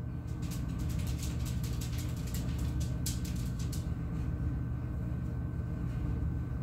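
Steady low room hum from an appliance, with a thin steady high whine. From about half a second to about four seconds in come faint quick sticky clicks and crackles of hands pinching soft dough closed.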